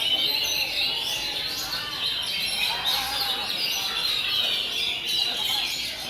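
Many Oriental magpie-robins (kacer) singing at once, a dense unbroken chorus of overlapping whistles and chirps.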